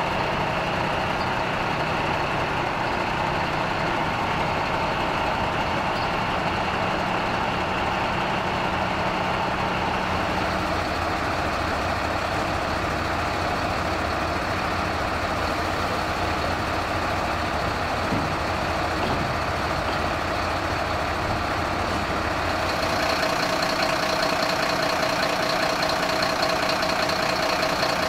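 Fire truck engines idling steadily. Late on the low rumble drops away and a higher hum comes up.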